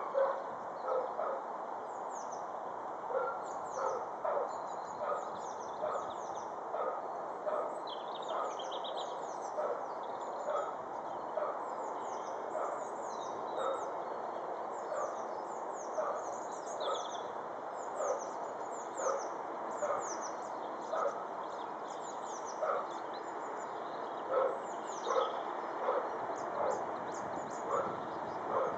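Distant Class 66 diesel locomotive hauling a loaded timber train, heard as a steady low rumble while it approaches. Short repeated sounds come about once or twice a second and are the loudest thing. Birds chirp throughout.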